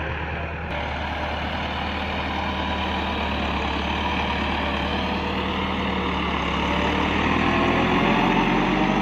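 Massey Ferguson 385 tractor's four-cylinder diesel engine working under load as its front blade pushes soil. It gets louder and rises in pitch near the end as the tractor climbs a mound, puffing black smoke.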